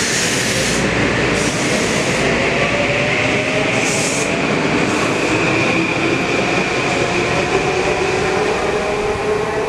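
Metro-North M8 electric multiple-unit train pulling out along the platform and moving away: a steady, loud rumble of wheels on rail, with electric traction motor whine slowly shifting in pitch.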